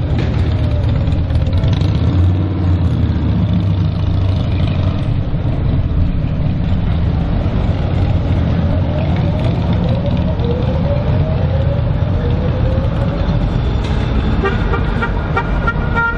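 GVB city trams and street traffic make a steady low rumble, with faint gliding tones. Near the end a tram's warning bell rings rapidly over and over, as cyclists cross in front of it.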